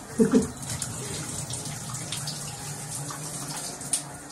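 Water running from a handheld shower head in a bathtub, a steady hiss as it sprays over a person and their clothes. A short vocal sound cuts in near the start, and there is a brief knock near the end.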